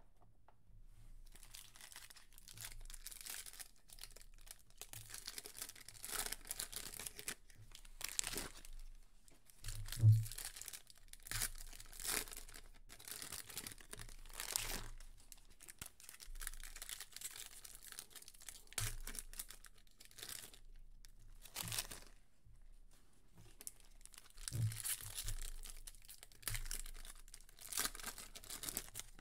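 Shiny foil wrappers of trading-card packs being torn open and crinkled in the hands, in an irregular run of rustles and crackles. There is one sharp knock about ten seconds in.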